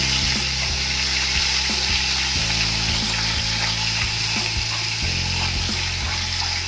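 Ginger-garlic paste sizzling steadily as it fries in hot oil in a large metal pot, stirred with a metal spoon.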